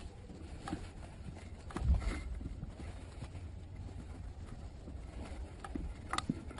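Footsteps and scattered knocks of an airsoft player moving over hard ground, over a steady low rumble on the microphone. There is one heavier thump about two seconds in and a sharp click near the end.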